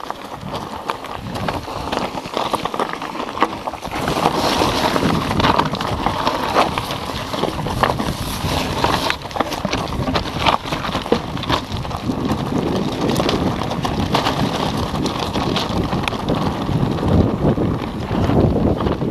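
Wind buffeting the microphone of a handlebar-mounted camera on a mountain bike riding down a rocky trail, over tyres crunching on loose stones and many small rattles and knocks from the bike. It gets louder about four seconds in.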